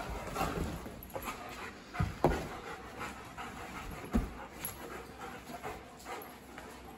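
A German shepherd and another large dog play-wrestling on a leather couch: heavy panting and scuffling, with sharp thumps a couple of seconds in and again about four seconds in.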